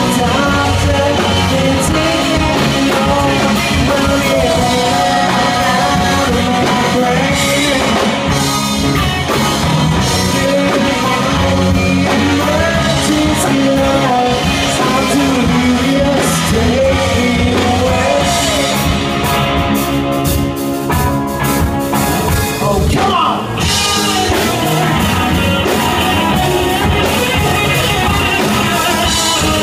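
Live rock band playing: two electric guitars, electric bass and a drum kit, with a brief drop in the sound a little over two-thirds of the way through.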